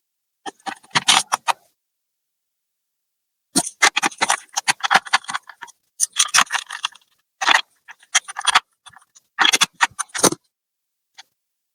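Bursts of quick clicking and rattling from small hard parts being handled, in several clusters of a second or so each with dead silence between them.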